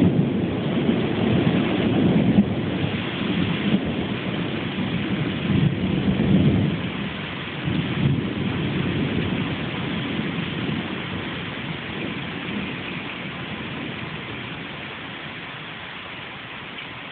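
Rolling thunder rumbling in several swells over steady rain, then dying away over the last several seconds.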